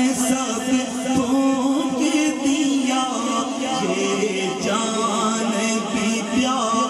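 A man singing a naat, a devotional praise poem, unaccompanied through a microphone, drawing out long wavering notes. A steady low held tone runs beneath and steps down in pitch about four seconds in.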